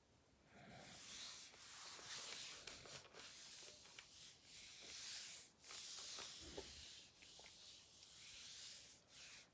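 Faint scratchy rustling in stretches of a second or two, with short breaks between them.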